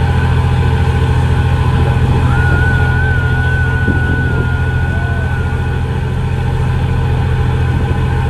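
Steady low engine drone, as heard aboard a running vehicle, with a faint thin wavering tone for a few seconds in the middle.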